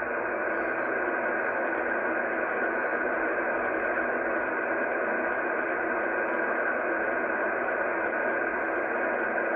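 Kenwood R-5000 shortwave receiver in lower sideband giving a steady band-limited hiss of band noise while being tuned across the 40 m amateur band, with no station coming through.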